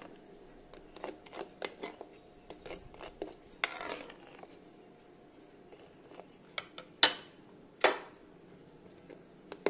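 Spoon clinking and scraping against a plate: scattered light clicks, with two sharper knocks about seven and eight seconds in.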